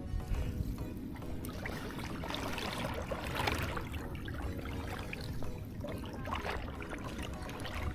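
Lake water sloshing and splashing around a long-handled prawn scoop net worked through the shallows, loudest about three seconds in, over a steady low rumble.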